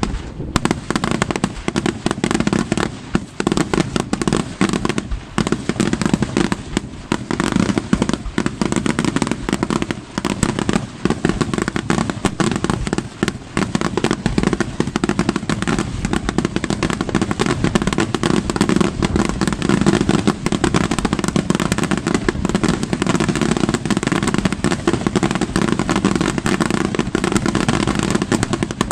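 Daytime fireworks display: a dense, unbroken barrage of rapid bangs and crackling from aerial shells bursting in coloured smoke.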